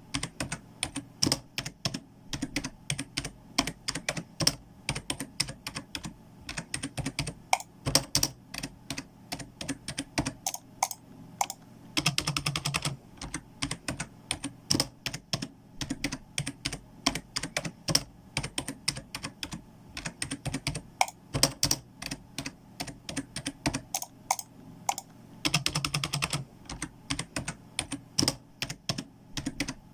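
Typing on a computer keyboard: irregular, rapid key clicks throughout, with denser flurries about twelve seconds in and again near the end.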